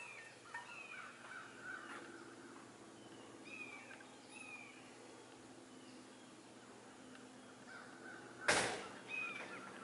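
Crows cawing repeatedly, a series of short falling calls. About eight and a half seconds in, a brief loud rush of noise covers everything.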